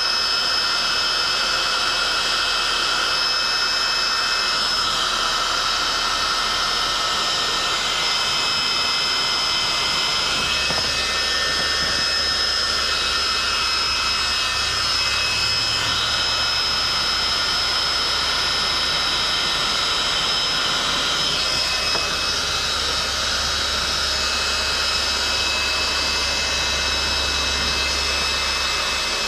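Electric heat gun running continuously, its fan blowing hot air onto faded plastic door-panel trim to bring back the colour. It gives a steady rushing blow with a few high whining tones, and a low hum comes in about ten seconds in.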